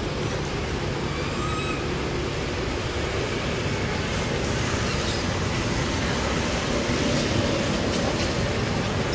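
Steady low rumbling background noise, with a faint brief chirp about one and a half seconds in.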